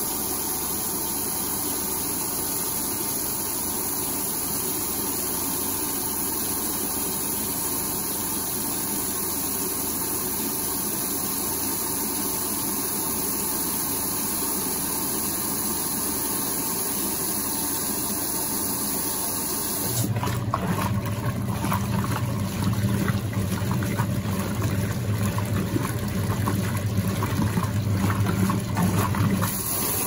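Brastemp Luxo BLR24Z top-load washing machine filling with water, a steady rush. About two-thirds of the way through, its motor comes on with a loud low hum over stirred water for about ten seconds, then cuts off abruptly.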